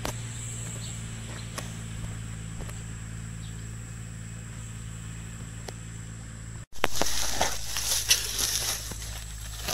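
A steady low hum with a faint high-pitched whine above it. After a cut about seven seconds in, louder rustling and crinkling of leaves and a plastic bag being handled, with scattered clicks.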